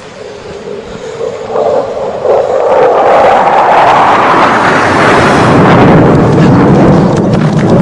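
Jet aircraft flying over: a roar that builds over about three seconds to a loud, steady rush, its pitch sinking lower near the end as it passes.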